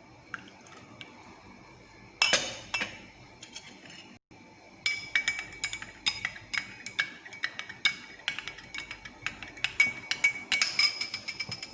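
A spoon clinking against a container while stirring: a couple of clinks about two seconds in, then rapid clinks, several a second, from about five seconds on, each leaving a short ringing tone.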